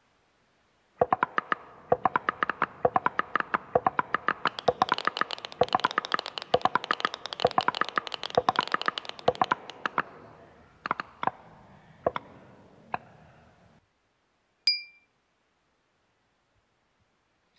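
A fast run of short plucked, string-like notes from an iPad music app as fingers strike and sweep its on-screen strings. The run thins out to a few single notes, then comes one clear ringing ding from a small glass being tapped.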